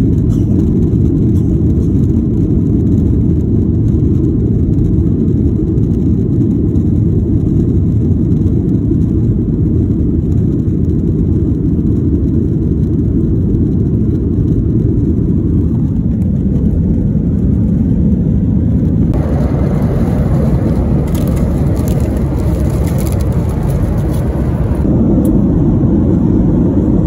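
Steady low rumble of an airliner's cabin in flight, the engines and airflow heard from a window seat. For several seconds in the second half a brighter hiss with a few crackles joins in.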